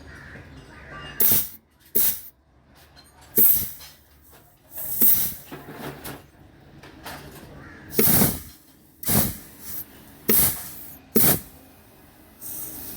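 Repeated short, loud hissing blasts of compressed air, about nine in all at uneven intervals, with a longer blast near the end.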